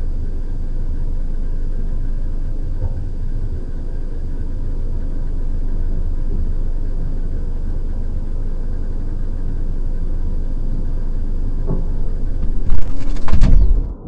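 Steady low industrial rumble with a faint high, steady whine, billed as a nuclear reactor's sound. Near the end comes a burst of loud knocks and rattling lasting about a second, which stops abruptly.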